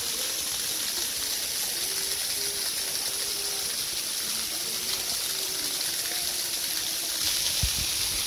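Steady rush of flowing water, a stream or small waterfall, with faint wavering tones underneath. Near the end it grows a little louder and there is a low thump.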